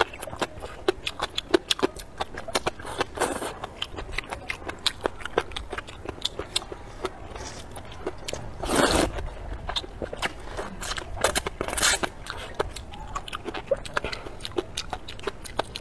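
Close-up eating sounds: wet chewing and crunching in quick, irregular clicks, with a loud slurp of rice noodles about nine seconds in and shorter slurps around three and twelve seconds.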